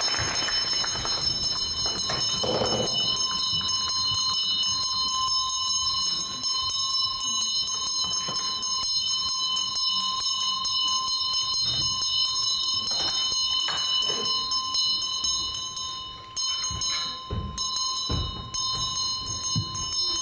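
A sustained high ringing of several steady tones held together, with a fast shimmering flicker, and a few soft knocks and thuds near the end.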